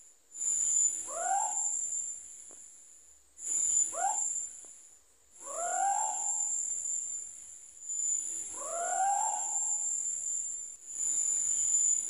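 A scops owl (celepuk) calling repeatedly, five calls about two to three seconds apart, each a short note that rises and then falls in pitch, the later ones a little longer. Insects trill steadily at a high pitch behind it.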